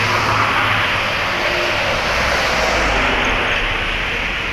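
Road traffic: motorbikes and cars passing on a busy road, a steady mix of engine noise.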